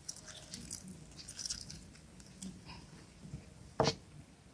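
Faint small clicks and handling noises of a spoon and small bowls at a basin of batter, with one sharper knock near the end as a small ceramic bowl is set down on the table.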